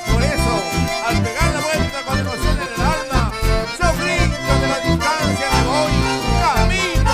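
Live band playing an instrumental passage led by accordion, over a steady pulsing low beat.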